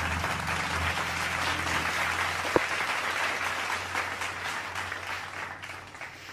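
Thin plastic bag crinkling and rustling as it is handled, fading toward the end, with one sharp click about two and a half seconds in.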